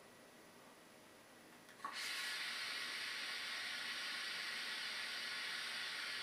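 Long drag on a Geek Vape Aegis Boost pod mod: a brief click about two seconds in, then a steady hiss of air drawn through the pod and its heated mesh coil for about five seconds.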